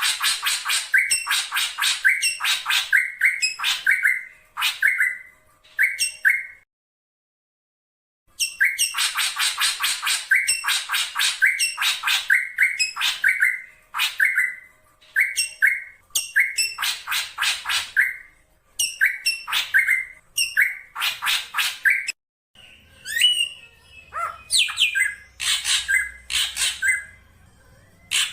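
Black drongo calling: rapid runs of short, harsh notes, each ending in a brief clearer whistle, in phrases a few seconds long with short pauses. About 23 seconds in, the calls thin out over a faint low hum.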